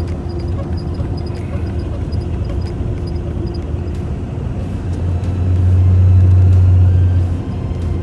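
Off-road vehicle's engine running as it drives, with a steady low drone. About two-thirds of the way in, the drone swells louder for roughly two seconds, then drops back.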